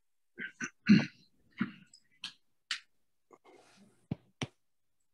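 A few short throat-clearing and coughing sounds, the loudest about a second in, then two sharp clicks about four seconds in.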